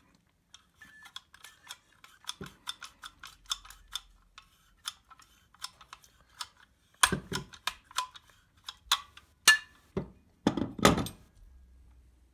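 One-handed bar clamp pressing nylon bushes into an aluminium throttle housing, its trigger clicking in a quick run of ratchet clicks, about two to three a second. Later come several louder knocks and clatters as the clamp and metal parts are handled and set down on the wooden bench.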